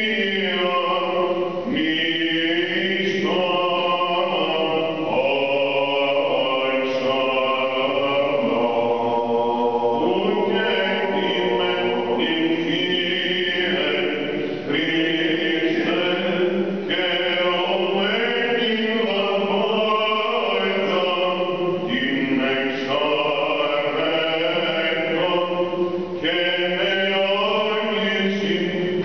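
Byzantine church chant: a cantor's unaccompanied singing in long held notes that step up and down in a melismatic line.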